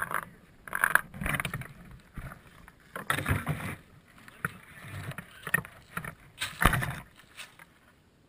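Rustling and knocking from an RC plane's onboard camera and airframe as the plane is pulled down out of a tree and drops into dry leaves, in irregular bursts with quiet gaps between.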